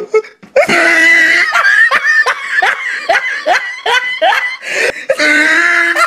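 Loud human laughter in quick, high-pitched bursts, with a drawn-out held cry near the end.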